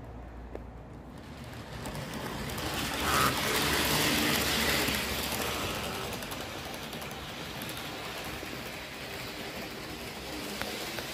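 H0-scale model AVE 103 high-speed train running on sectional track, its motor and wheels making a rushing hum that swells as it passes close by, loudest about three to five seconds in, then settles to a steadier, quieter running noise as it moves off along the far track.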